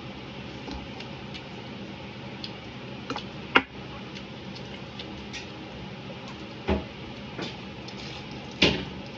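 Eating crispy fried lumpia and rice by hand: small clicks and taps of fingers and food on a plate, with a few louder sudden sounds. The loudest, near the end, is a bite into a crispy lumpia.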